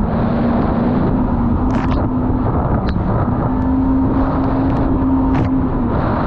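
Jet ski engine running under way, a steady drone that drifts slightly in pitch, over rushing wind and water noise. There are a few short sharp hisses.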